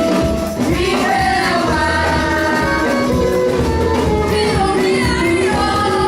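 Music with singing: a sung melody over a bass line.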